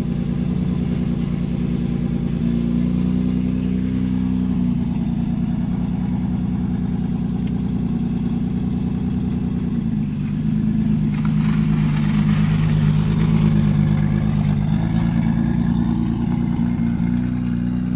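Dune buggy engine running with a lawnmower-like note. It picks up and gets louder about eleven seconds in, then eases off near the end. The engine is said to have a misfire.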